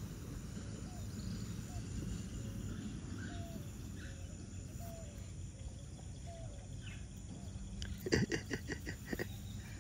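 Quiet rural morning ambience: faint, short rising bird chirps repeating over a steady low background hiss. About eight seconds in comes a brief burst of rapid close-up noises.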